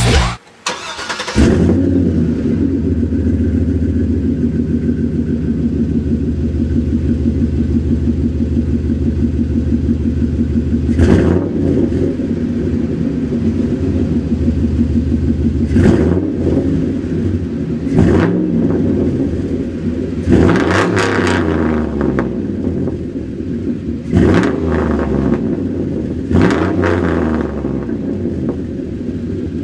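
2005 Chevy Silverado 2500HD's 6.0L V8, on Flowmaster Super 44 mufflers with 3-inch H-piped true dual exhaust, warm-starting about a second in and settling into a steady idle. It is then revved in short blips about seven times, each rising and dropping back to idle.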